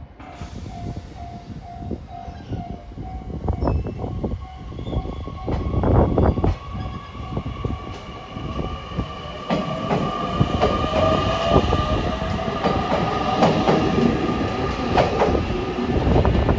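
Electric train moving at a station, with irregular clicks and knocks of wheels over rail joints. From about ten seconds in, a motor whine in several tones joins them and rises slightly.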